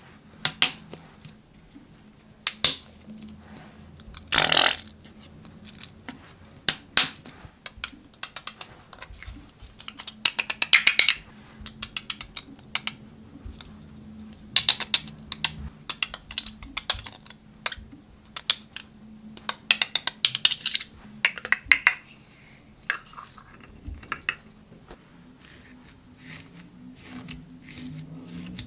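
Glitter being shaken and tapped out of plastic tubes onto clear slime in a glass bowl: irregular sharp clicks and taps, with short hissing shakes of pouring glitter scattered through. Near the end, fingers begin pressing and mixing into the slime.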